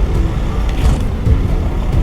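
Engine running steadily.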